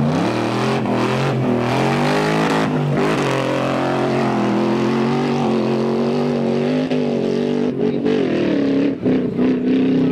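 Mercedes-Benz G-Class off-road racer's engine accelerating hard as it pulls away from the start, the revs climbing in the first second and then held high. The engine note wavers up and down near the end as it drives over rough ground.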